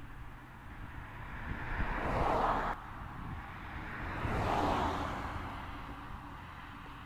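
Outdoor ambience: a steady low hum with two rising-and-falling swells of noise. The first is cut off suddenly a little under three seconds in, and the second fades away more gradually.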